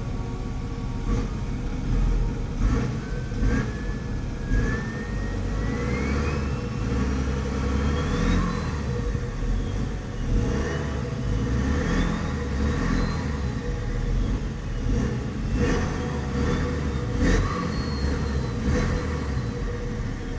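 BMW X5 40d's N57 twin-turbo straight-six diesel revving, with a turbo whistle that rises in pitch as the revs climb and falls back as they drop, three times over.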